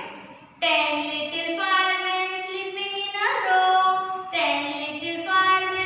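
A woman singing a nursery rhyme in English, in long held notes, starting about half a second in.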